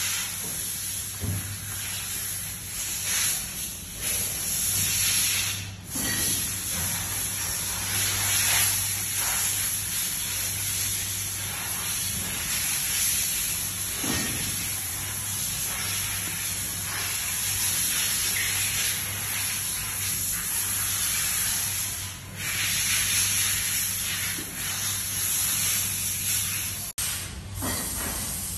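A steady high hiss and a low even hum run throughout, with faint scattered rustles and clicks from hands handling wires and a microswitch inside an electric valve actuator's terminal compartment.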